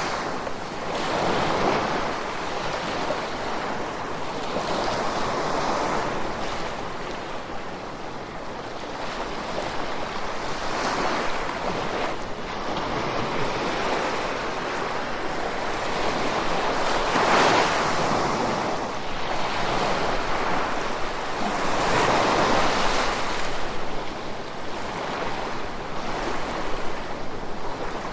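Gentle ocean waves washing ashore, a steady hiss of surf that swells and fades every few seconds as each wave breaks, the strongest surges coming in past the middle.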